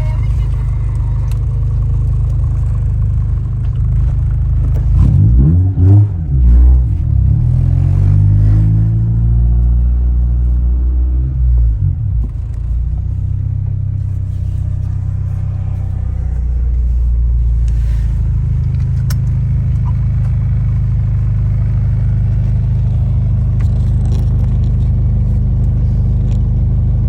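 1996 Honda Civic hatchback's four-cylinder engine and loud exhaust on a drive, with a steady low drone. About five seconds in it revs up hard, its pitch rising, then settles back into the drone. The exhaust is obnoxiously loud and in need of fixing.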